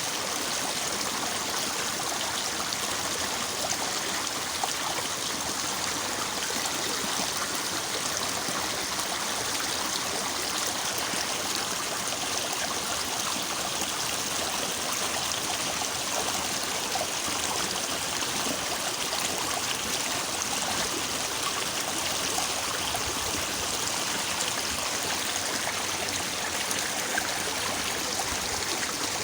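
Water of a small, fairly swift stream babbling steadily.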